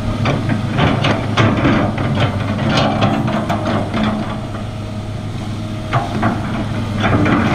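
Large excavator's diesel engine running steadily under load, with a string of sharp clanks and knocks as it digs, most of them in the first four seconds and a few more around six seconds in.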